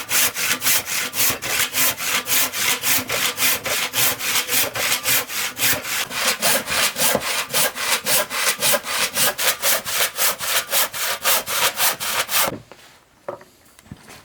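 Hand saw cutting along a line in an oak beam to join two drilled holes into a mortise slot, in fast, even back-and-forth strokes about four a second. The sawing stops suddenly near the end.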